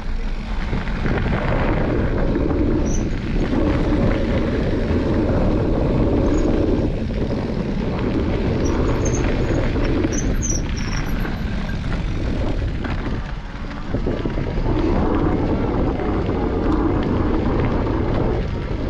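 Mountain bike riding fast down a gravel trail: tyres rolling and crunching on the gravel under a steady rush of wind on the microphone, dipping briefly twice.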